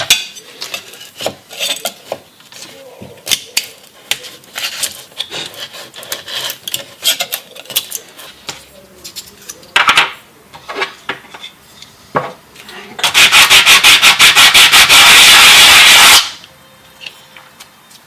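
Scattered clicks and knocks of small hard objects being handled, then about three seconds of loud, fast, evenly repeated rasping strokes that stop suddenly.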